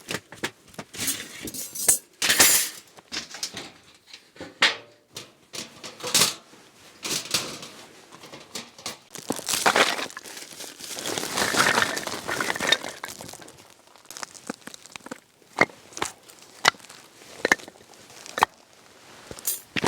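Irregular clinks, knocks and crinkling, like hard items and plastic packaging being handled, with a longer stretch of rustling about halfway through.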